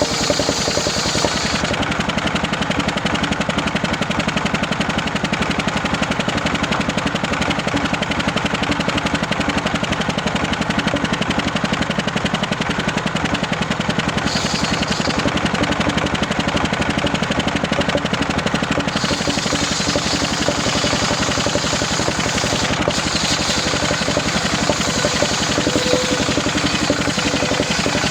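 Homemade circular saw rig running steadily, its engine keeping a rapid, even beat while the blade saws through waru wood.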